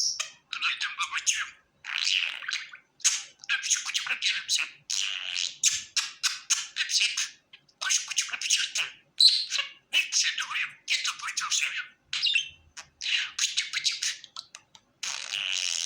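Budgerigar chattering: a continuous run of short chirps, squawks and warbled phrases with brief pauses between them.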